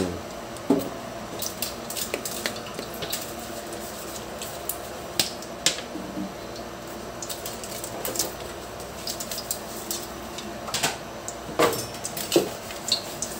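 Kitchenware clinking and tapping now and then, a dozen or so short knocks spread irregularly over a steady low hum.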